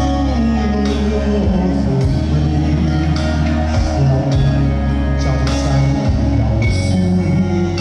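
A song playing: a singing voice over a steady accompaniment with sustained bass notes that change every second or two.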